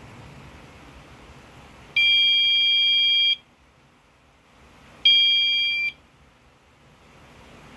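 Anti-theft alarm's piezo buzzer sounding two steady, high-pitched beeps: one about a second and a half long, then a shorter one. The alarm is set off by separating the two halves of its magnetic door-contact sensor.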